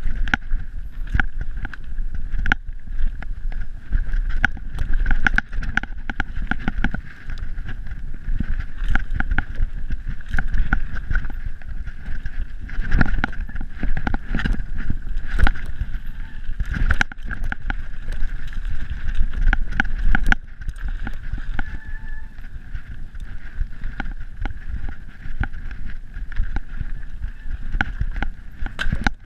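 Mountain bike descending fast over a slippery, rooty trail: a steady rumble of tyres and air with frequent sharp knocks and rattles as the wheels hit roots. The knocking eases a little about twenty seconds in.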